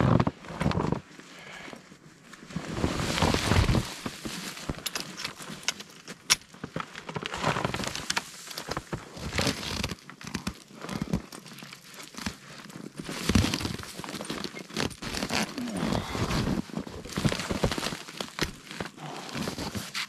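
Large tent fabric rustling and swishing as it is pulled over and fastened to a metal pole frame, with boots crunching in snow and sharp clicks here and there.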